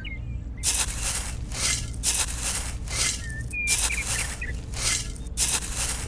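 Background music: a steady low bass with an evenly paced, hissing percussion beat.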